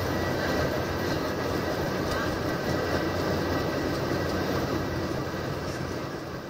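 Steady cabin noise of an Airbus A320 in flight: engine hum and rushing airflow heard inside the cabin, fading away near the end.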